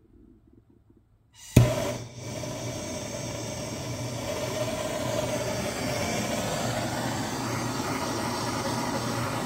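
A handheld gas torch lights with a sharp pop about a second and a half in, then burns steadily with a loud, even rushing noise while it chars a hickory axe handle.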